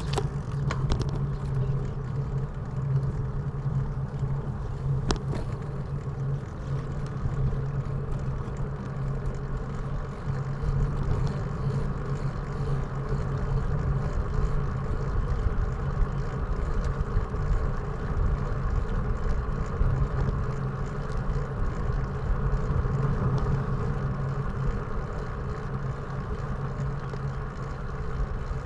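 A motor vehicle travelling at a steady pace: a steady low engine hum over road noise.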